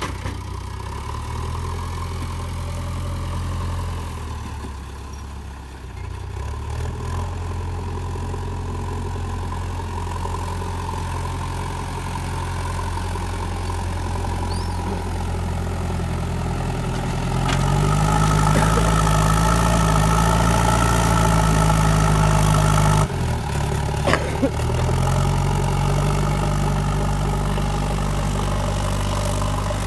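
JCB 3DX backhoe loader's diesel engine running steadily, then revving up louder about halfway through. It drops back abruptly, a couple of sharp knocks follow, and it picks up again near the end.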